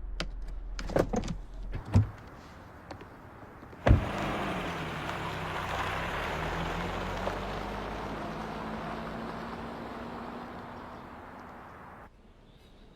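Soft clicks and knocks, then a sharp thump about four seconds in, followed by a steady rushing noise with a low hum that cuts off suddenly about twelve seconds in.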